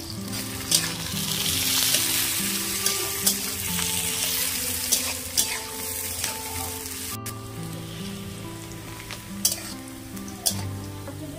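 Sliced onions frying in oil in an iron kadhai, sizzling steadily, with a metal spatula clicking and scraping against the pan several times as they are stirred. Background music with a slow melody plays under it.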